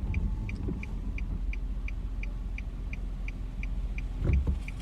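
Car turn signal clicking steadily at about three clicks a second over the low rumble of the car running on the road, with a brief low bump near the end.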